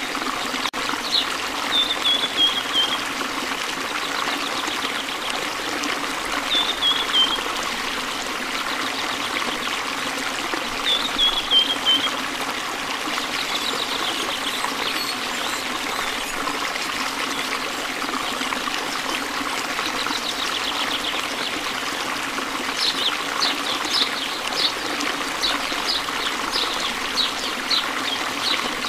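Small fountain trickling steadily. Over it, high bird twitters: a short falling phrase three times in the first half, then a quick run of high chips near the end.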